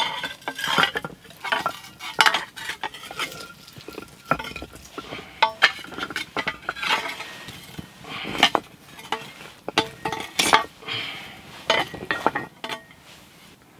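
Metal utensil clinking, tapping and scraping against cast-iron cookware over a campfire: an irregular run of sharp clinks, some ringing briefly.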